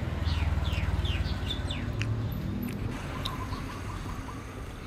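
Birds chirping: a quick series of short falling calls in the first two seconds, over a low steady rumble that fades out about halfway through.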